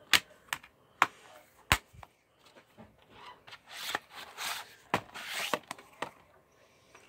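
Handling of a plastic multi-disc DVD case: several sharp clicks as the hinged disc trays are flipped and knocked together in the first two seconds, then rustling and sliding of the case against its cover sleeve, with a few more clicks near the end.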